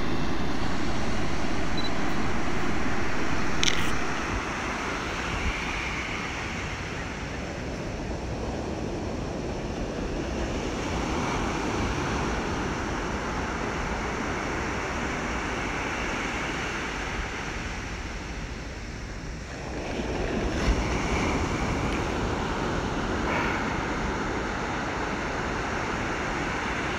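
Sea surf: waves washing in, a rushing noise that swells and fades every few seconds. For about the first four seconds it is louder, with a faint steady hum, and it drops after a click.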